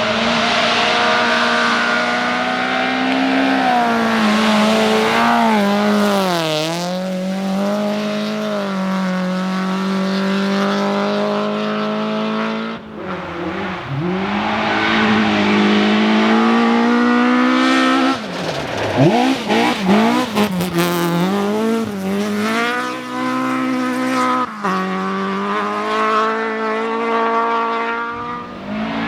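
Rally cars driven hard through a stage, one after another: engines revving high, the pitch dropping and climbing again through gear changes and throttle lifts. The sound breaks off abruptly several times as one car gives way to the next.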